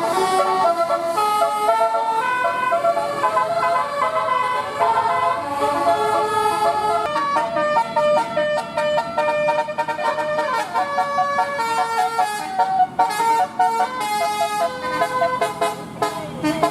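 Bus 'telolet' horn, a Basuri multi-trumpet musical air horn, playing a fast tune of stepped notes, one after another without a break.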